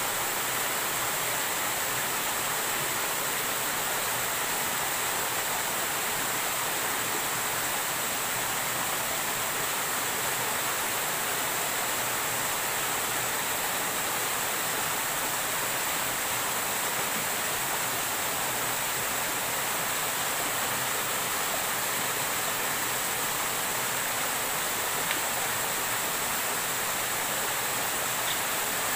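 Steady rushing of a stream tumbling down small cascades between boulders.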